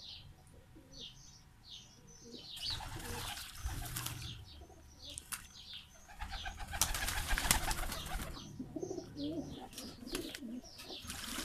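Domestic pigeons bathing in tubs of water, splashing and beating their wings in the water in two bursts of a second or two, with a shorter burst near the end. Pigeons coo in the second half, and short high bird chirps repeat throughout.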